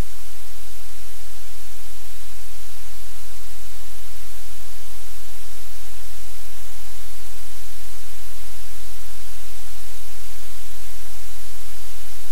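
Loud, steady hiss of white noise with a low hum underneath, unchanging, covering any sounds in the room.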